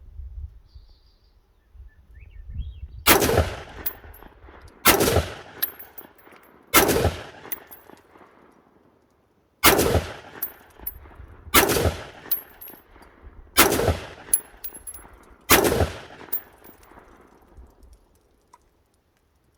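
Spike's Tactical AR-15 rifle fired seven single shots, about two seconds apart with a longer pause after the third, each shot trailing off in an echo.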